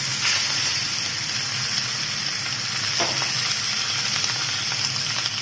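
Hilsa fish heads frying in hot mustard oil in a wok: a steady, loud sizzling hiss while a spatula turns the heads.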